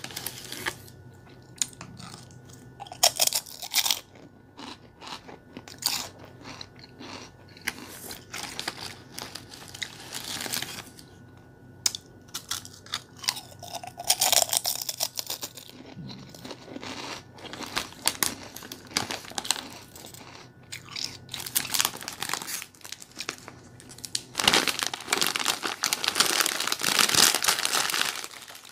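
Bubble gum being chewed close to the microphone: irregular wet clicks and smacks. Near the end there is a longer, louder stretch of crackly rustling.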